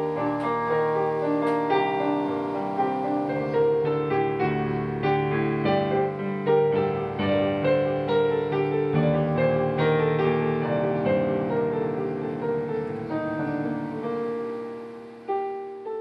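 Solo piano music played on a digital piano: a flowing melody over chords with many notes in quick succession, dying away near the end before one more note sounds.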